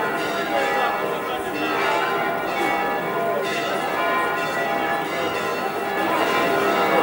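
Church bells pealing continuously, many overlapping bell tones, rung for the patron saint's procession returning to the church.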